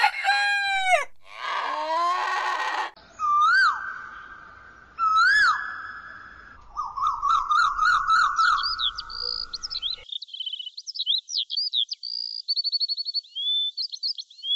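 A run of farmyard and bird calls: a rooster crowing at the start, a few other animal calls, then high songbird chirping through the second half.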